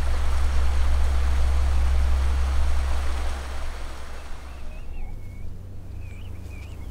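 Stream water rushing over rocks, a steady loud rush that fades out after about three and a half seconds, over a deep low hum.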